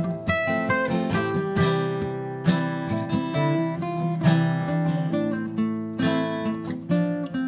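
Acoustic guitar playing an instrumental passage of a slow folk song, strummed chords with picked melody notes and no singing.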